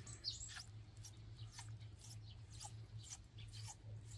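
Faint, scattered scratching and light clicks of gloved hands rubbing white cement grout into the gaps between tiles, over a steady low hum.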